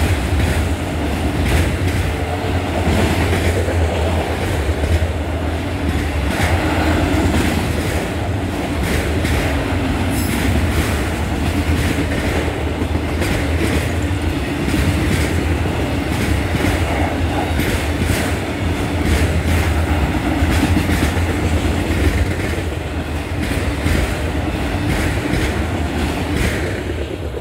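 Freight train of autorack cars rolling past: a steady rumble of steel wheels on rail with repeated clickety-clack over the joints. The last car goes by near the end.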